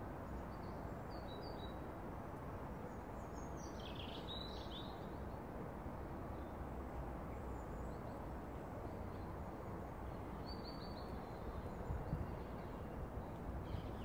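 Steady low outdoor background noise with a few short, faint songbird chirps scattered through it, the clearest about four seconds in and again near eleven seconds in.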